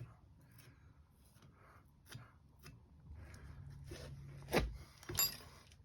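Faint handling of wheel parts as a packed bearing and the tire are slid onto the garden tractor's spindle: small scrapes and clicks, then two sharper knocks near the end, the second a metallic clink with a short ring.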